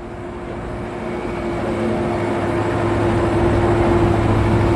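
Engine and road noise inside the cabin of a Mitsubishi Canter-based minibus, its 125 PS turbodiesel running under way. It grows steadily louder over the first three seconds, then holds, with a steady hum underneath.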